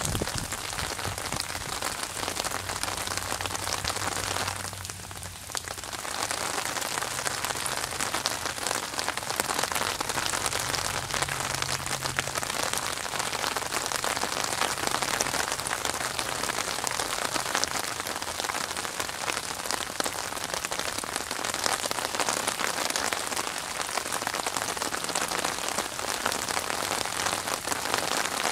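Steady rain falling on open water: a dense, even hiss of countless small drops striking the surface. It eases briefly about five seconds in, then returns.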